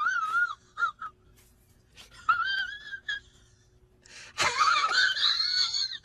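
A pet animal's drawn-out, wavering cries: one trailing off at the start, a short one about two seconds in, and a louder one that rises in pitch from about four and a half seconds in.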